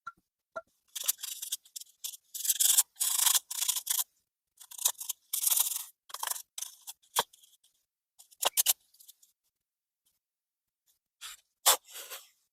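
Carburetor parts being cleaned: irregular short bursts of rubbing and scraping, with a few sharp clicks in the middle.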